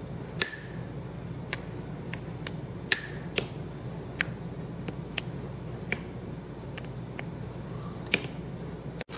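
Irregular light ticks and clicks, about a dozen scattered over several seconds, over a steady low hum.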